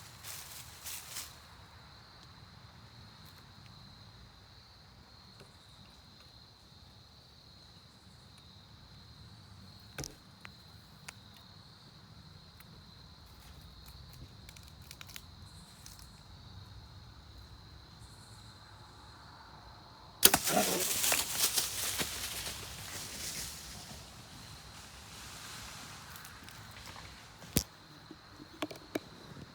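A compound-bow shot at a black bear: a sudden loud release about two-thirds in, followed by a few seconds of crashing through brush and dry leaves as the bear runs off. A steady high insect drone and scattered small clicks lie underneath.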